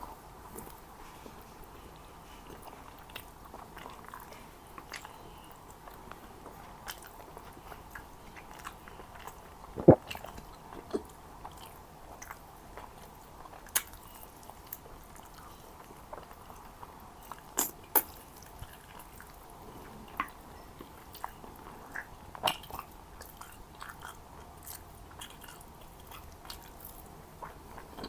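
Close-miked eating: a person chewing and biting mansaf, with wet mouth clicks and smacks at irregular moments and a few louder ones about ten and eighteen seconds in.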